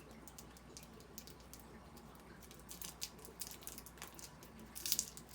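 Close-up wet mouth sounds of chewing a chewy fruit candy (taffy-like peach fruit chew): scattered sticky clicks that grow denser and louder toward the end.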